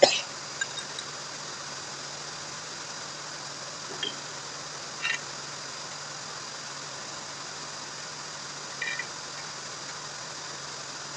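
Steady low machine hum, with a few short clicks and taps as small fittings are handled and screwed into a valve block. The loudest click comes right at the start, and smaller ones follow about 4, 5 and 9 seconds in.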